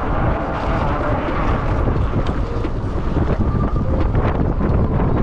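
Wind buffeting the microphone of a camera riding on a moving bicycle: a loud, steady rumble, mixed with tyre and road noise and a few light clicks.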